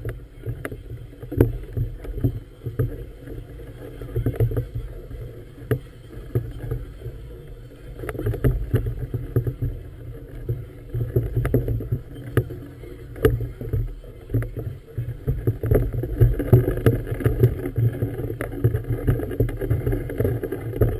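Wind rumble and choppy harbour water slapping against the hull of a moored floating vessel, with many short knocks. It gets louder in the second half.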